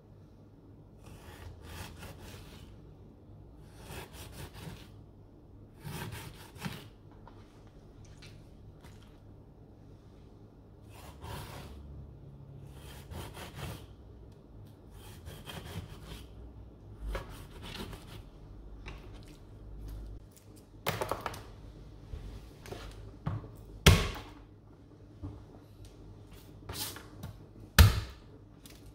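Kitchen knife cutting and scraping along a brill on a plastic cutting board, a string of short scrapes and rubs. In the second half come sharper knocks of the blade and hands on the board, the loudest near the end as a garlic clove is crushed under the flat of the knife.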